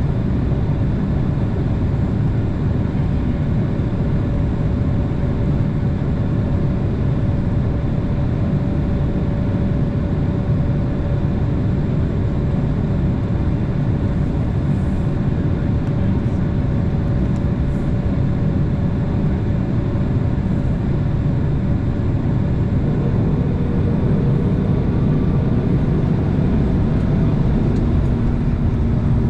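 Jet airliner's engines running at low taxi power, heard inside the cabin as a steady rumble with a constant whine. The sound swells slightly near the end.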